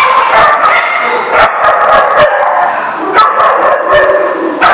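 A group of dogs barking over one another without a break, loud and dense.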